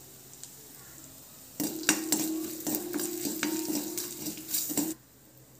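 Asafoetida and spices frying in hot coconut oil in a black iron kadai, stirred with a metal spoon that clicks and scrapes against the pan. This is the tempering stage of the curry. The sizzling and stirring begin about a second and a half in after a quiet start, and cut off abruptly near the end.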